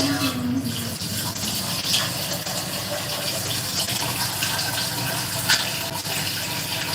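Water running steadily from a kitchen tap, with a few small clicks and clinks.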